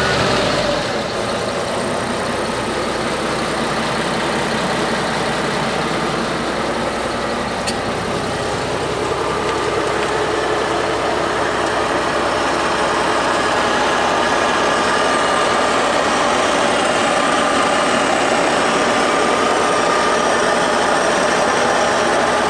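Tractor diesel engine running steadily at idle, heard close to the engine and hydraulic lines, with a single faint click about eight seconds in.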